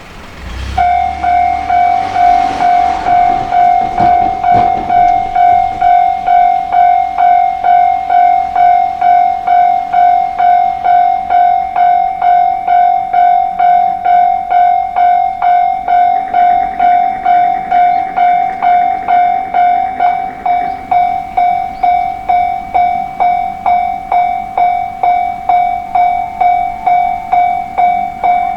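Japanese railway level-crossing warning bell ringing its "kan-kan" alarm, a ringing tone struck about twice a second, starting about a second in: the signal that a train is approaching and the barriers are coming down.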